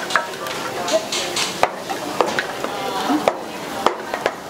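Teppanyaki chef's metal spatula and fork clinking and clacking against each other and the steel griddle in a tool-twirling routine, with about a dozen sharp, irregular strikes, some ringing briefly. Bean sprouts sizzle steadily on the hot griddle underneath.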